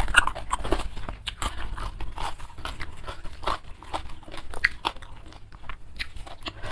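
Close-miked chewing of an Indonesian rice meal: a steady run of small wet mouth clicks and crunches.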